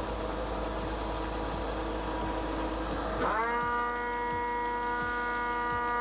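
Fire engine's pump engine running steadily at raised RPM. About three seconds in, a second, higher-pitched steady whine spins up and holds: the priming pump engaged to draw air out of the hard suction hose while drafting.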